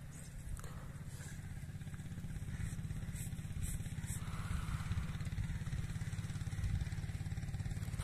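A motor engine running steadily with a low, rapid pulsing that slowly grows louder.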